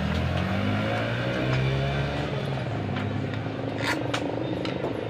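A motor vehicle's engine running past, its pitch slowly shifting, with a single sharp metal clink about four seconds in.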